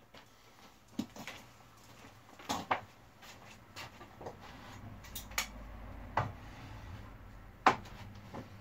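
Scattered knocks and clicks of a circular saw and plywood being handled and set in place for a cut, with a faint low hum coming in about halfway through.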